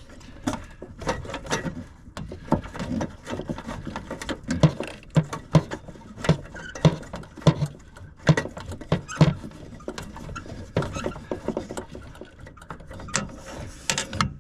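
Hand work inside a gas furnace cabinet: irregular clicking, tapping and light knocking of tools and small metal parts. A run of soft thumps about half a second apart comes in the middle.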